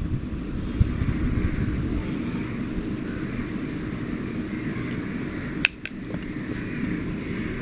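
Steady low background rumble, with a single sharp click about five and a half seconds in.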